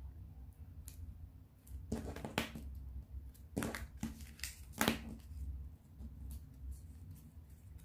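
Colored origami paper of a folded paper blade being creased and pressed by hand, crinkling in short rustles about two, three and a half and five seconds in, with a plastic ruler pressed along a fold.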